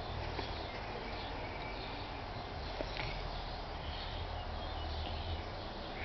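Outdoor garden background: a steady low rumble with faint, scattered bird chirps and a few faint clicks.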